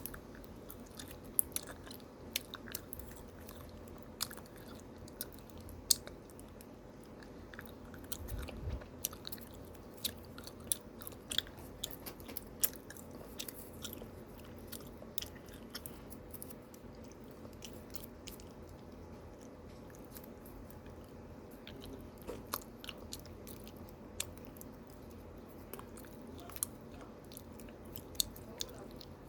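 Small scissors snipping through a plastic candy wrapper, with scattered light crisp snips and crinkles and one soft thud about eight seconds in.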